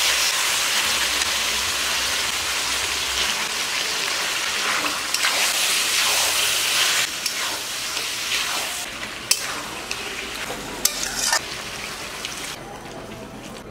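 Mutton pieces sizzling in hot oil and fried spice paste in a metal kadai, stirred with a metal spatula that scrapes and knocks against the pan now and then. The sizzle slowly fades, then drops away about twelve seconds in as water is poured in.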